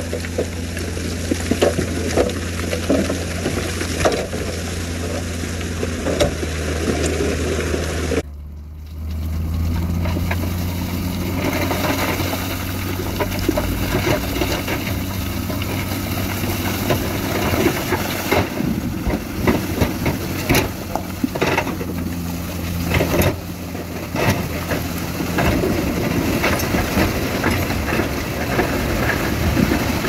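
Heavy diesel earthmoving machinery running steadily, with scattered knocks and clatter of tipped stone and rock. The sound cuts off abruptly about eight seconds in, dips briefly, then resumes much the same.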